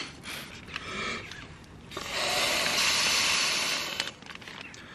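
A cheap inflatable camping mat being blown up by mouth: one long breath of air hissing into its valve about two seconds in, lasting nearly two seconds, with a shorter, fainter breath before it.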